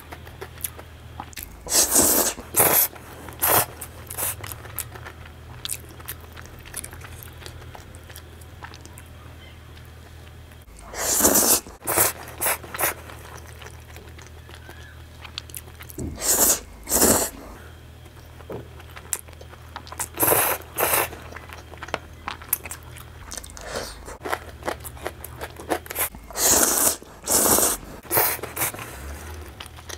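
Close-miked slurping of spaghetti in meat sauce, loud quick slurps in groups of two or three, with quieter chewing between them.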